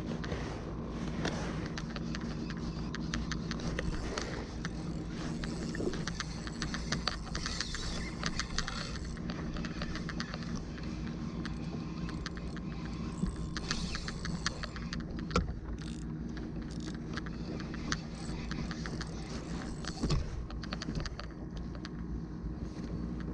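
Spinning fishing reel being cranked to reel in a hooked fish, a fast run of fine ticking clicks from the reel, over a steady low hum.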